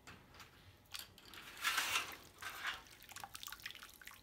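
Water dripping and splashing back into a tub as a bundle of steel-cable wolf snares is lifted out of it. Scattered short drips, with a louder splash near the middle.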